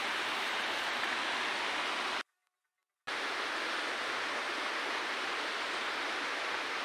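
Steady rush of flowing water, with no distinct events in it. It cuts out to silence for under a second about two seconds in, then carries on.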